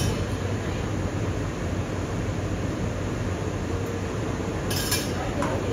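Steady café room noise: a low hum under an even hiss, with a short burst of sharper hiss about five seconds in.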